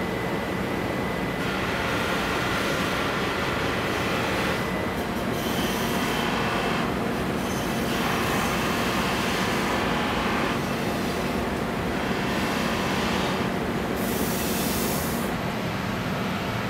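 Spinning buffing wheel on a polishing machine running steadily, with a rasping hiss that swells each time a kitchen knife blade is pressed against it and fades as it is lifted off, in about five passes.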